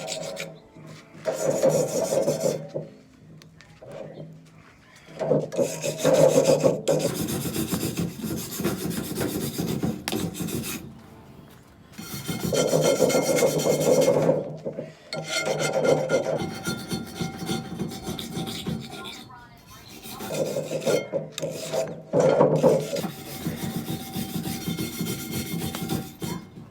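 Wire brush scrubbing a hot cast iron pan, in repeated bursts of scraping with short pauses between. The brush is stripping off the burnt, powdered crust.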